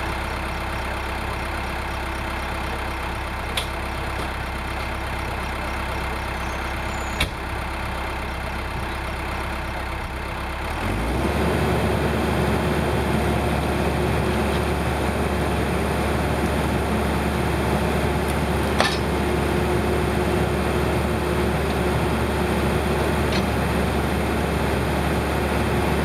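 Case 580L Turbo backhoe's turbo diesel engine running steadily, then picking up revs and getting louder about eleven seconds in as the hoe works. A few brief knocks are heard over it.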